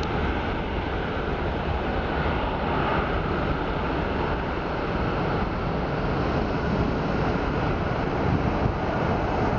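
Jet engines of a twin-engine widebody airliner at takeoff thrust during the takeoff roll, heard from a distance as a steady rushing rumble, with wind buffeting the microphone.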